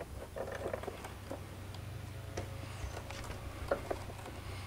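Scattered light clicks, small knocks and rustling as a person shifts on a mechanic's creeper under a pickup truck, over a steady low hum.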